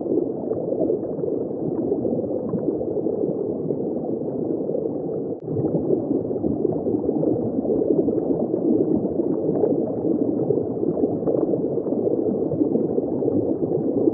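Muffled underwater bubbling and rushing noise, steady and crackly, with a brief dip about five seconds in.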